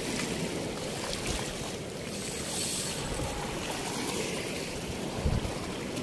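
Steady rush of floodwater pouring through a weir's sluice gate, with wind buffeting the microphone. A dull thump about five seconds in.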